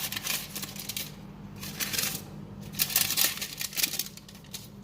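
Quick runs of light clicks and taps in three short clusters, over a steady low hum, as the cookie goes into the microwave.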